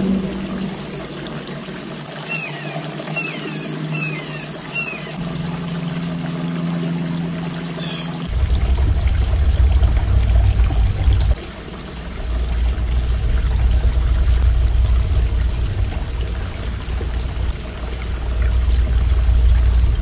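Small stacked-stone garden fountain trickling steadily. About two seconds in there are four short falling chirps, and from about eight seconds a low rumble comes in under the water.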